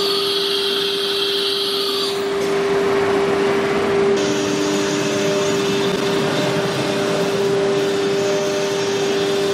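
ATC nesting CNC router running: a steady whine over a noisy mechanical hiss, the hiss changing character about two seconds and again about four seconds in.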